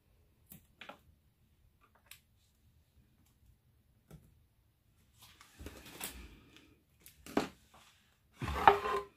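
Small clicks and scratches of a vinyl weeding hook picking stencil vinyl out of the centre of a letter O on a painted wooden sign. Near the end comes a louder rubbing as hands press and handle the board.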